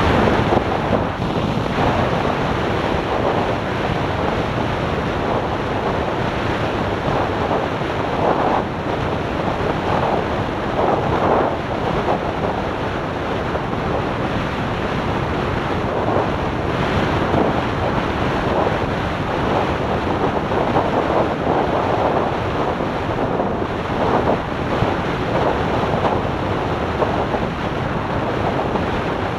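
Wind buffeting the microphone of a camera on a motorcycle cruising at highway speed: a steady, loud rush of wind and road noise that swells and eases every second or two.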